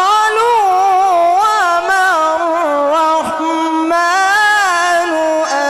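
A male qari reciting the Quran in melodic tajweed style through a microphone. A single voice holds long, ornamented notes that waver and glide in pitch, with two short breaks for breath.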